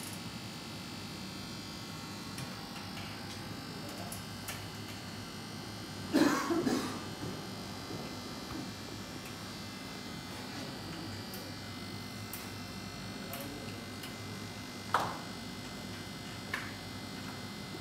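A steady electrical hum or buzz. About six seconds in there is a short vocal sound, and near the end two sharp knocks, the first louder.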